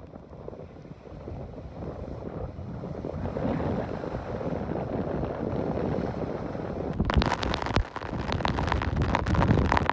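Bow wave and spray rushing along the hull of a sailing yacht driving fast through rough seas. About seven seconds in, heavy wind buffeting on the microphone takes over.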